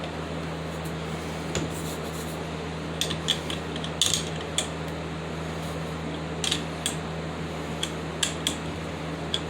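Wrench and steel parts of an angle grinder stand clicking and clinking as nuts are loosened and adjusted: a dozen or so sharp metal clicks, several close together about three and four seconds in, over a steady low hum.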